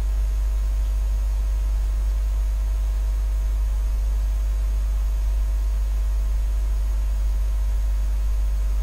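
Steady low electrical mains hum with an even hiss and faint steady tones above it, unchanging throughout with no other events.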